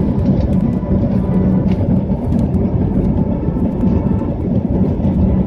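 Jet engines of an Airbus A320-family airliner at takeoff power, heard from inside the cabin during the takeoff roll: a loud, steady, dense noise.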